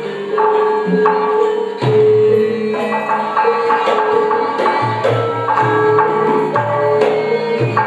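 Javanese gamelan ensemble playing: bronze metallophones and gongs ring out a steady melody of struck, sustained notes over the strokes of a kendhang hand drum.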